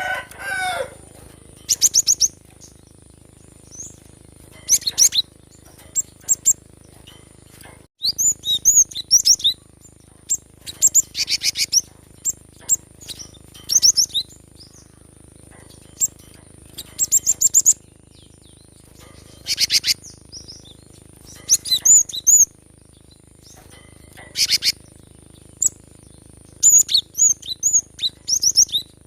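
Cinereous tit (gelatik batu) singing: short bursts of rapid, high chirping notes and trills that repeat every couple of seconds.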